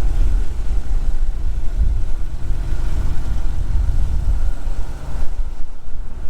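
Wind buffeting the microphone in a loud, gusty low rumble, over the steady drone of a small trainer airplane's engine idling.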